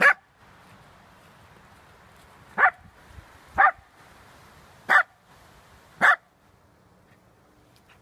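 A corgi barking: five short, sharp single barks, the first right at the start and the other four about a second apart from around two and a half seconds in.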